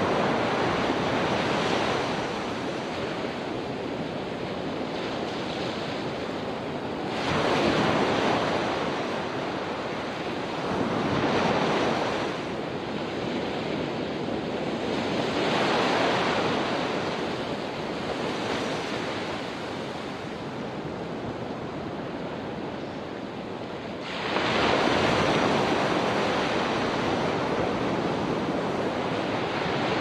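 Small ocean waves breaking and washing up a sandy beach, the surf rising and falling in a rush every few seconds. The loudest rush sets in abruptly about three-quarters of the way through and carries on to the end.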